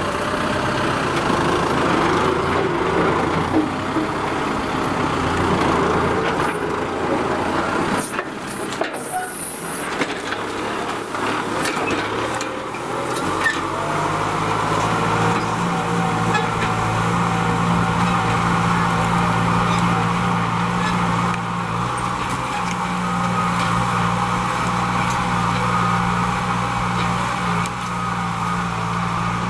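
Kubota M6040SU tractor's diesel engine running steadily under load as it pulls a disc harrow through dry soil. About halfway through the engine note turns into a steadier, stronger low hum.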